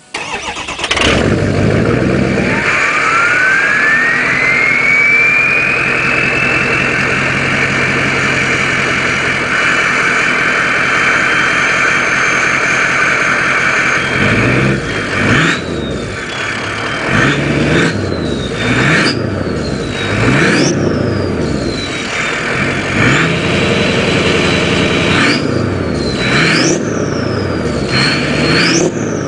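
2003 Ford 6.0L Power Stroke V8 turbodiesel starting up, its turbo whistle rising over a few seconds to a steady high whistle at idle. From about halfway on the engine is revved about eight times, the whistle climbing higher and falling back with each rev.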